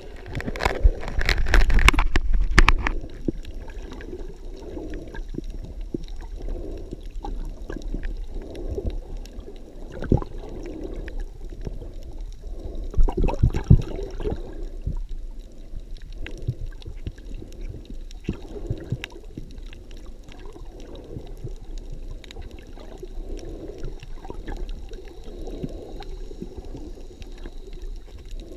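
Muffled gurgling and sloshing of water heard from a camera held underwater, with louder bubbly bursts about a second in and again around the middle.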